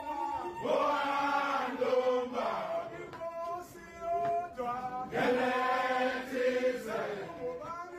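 Men's voices chanting together in long, gliding held notes, in phrases with a quieter stretch about three to four seconds in.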